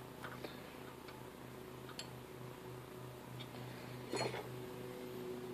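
A few faint metallic ticks and taps, the loudest about four seconds in, as a drill bit is set into the gap between the lathe tool and an aluminum pulley to gauge the clearance. Under them runs a low steady hum with a slow pulsing beat.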